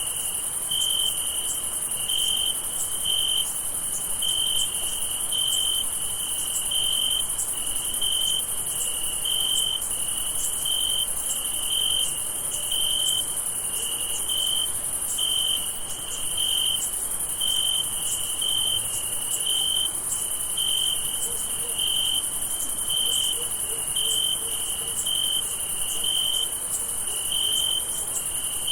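Crickets chirping in a night chorus: one cricket chirps in an even rhythm, about three chirps every two seconds, over a continuous high-pitched insect trill.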